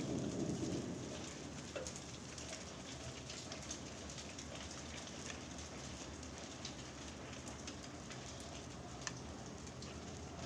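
Steady rain falling, with scattered drips and ticks of drops striking a surface; a low thunder rumble fades out in the first second or so.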